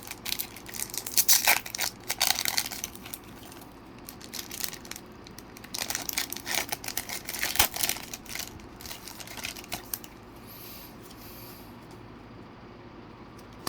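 Foil wrapper of a Pokémon card booster pack crinkling and tearing as it is opened, in two spells of rustling over the first ten seconds, then only faint room hum.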